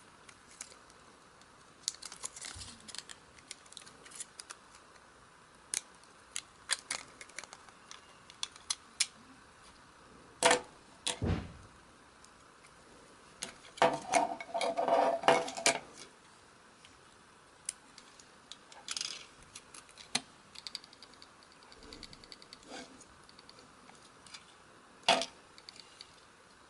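Small clicks, taps and scrapes of tools and small plastic and metal parts being handled while a dashcam is taken apart, with a sharp knock about ten seconds in and a louder rattling clatter around the middle.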